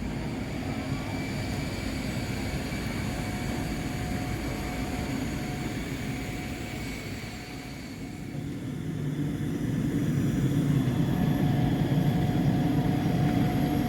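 Steady aircraft noise: a low rumble with faint high whines, growing louder about nine seconds in.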